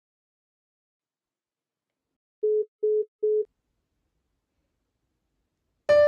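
Three short, evenly spaced beeps of a phone's FaceTime call-ended tone, one steady pitch each. Piano music starts just before the end.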